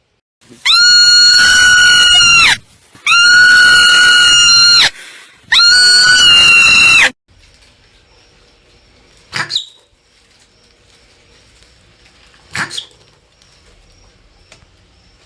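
Marmot screaming: three long, loud, high-pitched calls of about two seconds each, held at a steady pitch, followed by two short sharp chirps a few seconds apart.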